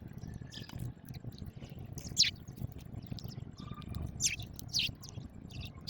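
House sparrows chirping: short, irregular chirps that each drop quickly in pitch, the loudest about two seconds in and again around four to five seconds in.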